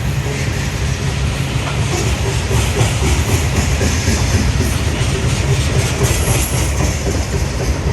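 A train's railroad cars rolling past with a steady low rumble and wheel clatter.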